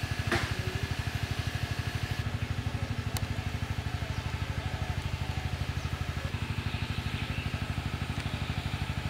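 A small engine idling steadily, an even low chugging of about a dozen beats a second.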